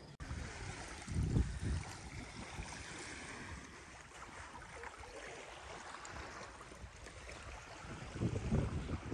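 Small Lake Erie waves washing steadily on a sandy beach, with wind gusting on the microphone about a second in and again near the end.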